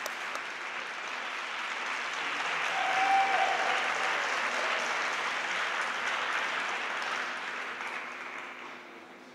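Audience applauding, swelling about three seconds in and dying away near the end.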